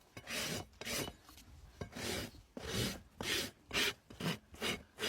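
Farrier's rasp filing a horse's hoof in repeated scraping strokes, quickening toward the end.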